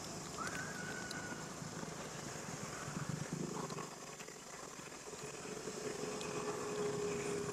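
Outdoor ambience with a steady high insect-like hiss; a short whistle-like call rises and holds about half a second in, and a steady low hum, like a distant motor, sets in about five seconds in.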